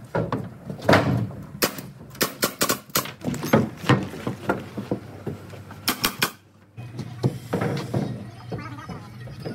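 Pneumatic framing nailer driving nails into wood framing: a quick run of sharp shots. There is a short break about six and a half seconds in, followed by a low steady hum and a few scattered knocks.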